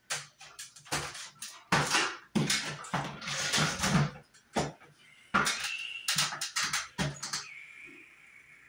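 Irregular knocks, clanks and scrapes of metal tools and fixture hardware being handled. Near the end a faint high steady tone comes in.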